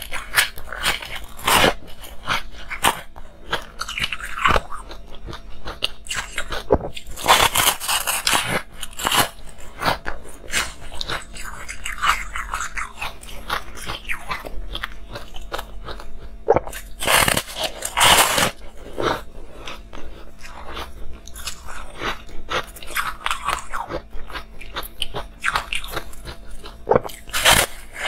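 Crunching bites into a porous, frosty slab of rainbow-coloured ice, with chewing of the pieces in between. The crunches come irregularly, with the loudest clusters about 7 seconds in, around 17 to 18 seconds in, and near the end.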